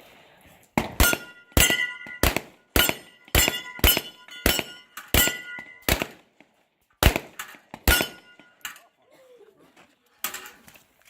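A rapid string of pistol shots in a practical shooting stage, about fifteen in roughly seven seconds, many followed by a ringing clang as bullets strike steel targets. The shots come in quick pairs and small groups with short pauses between.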